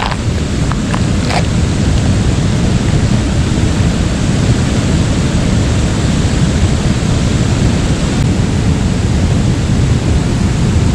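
Steady rushing noise of river rapids, with wind on the microphone. There are a few light knocks in the first second or so.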